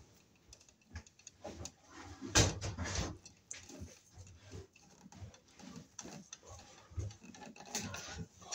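Handling noise from stripping non-metallic sheathed electrical cable with pliers: scattered rustles, scrapes and clicks as the sheath, the paper filler strips and the bare copper ground wire are pulled free, with a couple of louder knocks about two and a half and three seconds in.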